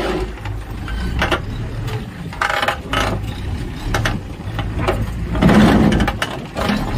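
Engine idling steadily, with scattered short knocks and scuffs and a louder burst of noise about five and a half seconds in.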